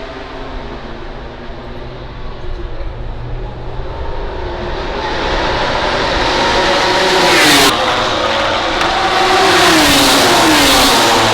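A MotoGP racing motorcycle's four-cylinder 1000 cc engine at full throttle. Its note climbs, breaks sharply with an upshift about two-thirds of the way in, climbs again, then falls away as the bike goes by. A fainter engine drone sits under it at the start.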